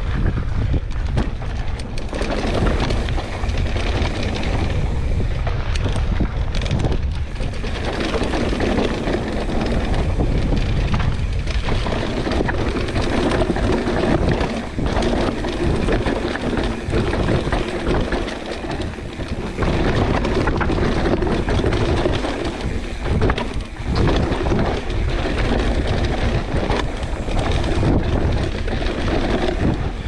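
Wind buffeting the action-camera microphone over a Pivot Switchblade full-suspension mountain bike descending a dirt trail at speed, its tyres rolling on dirt and its chain and frame rattling, with frequent short knocks over bumps.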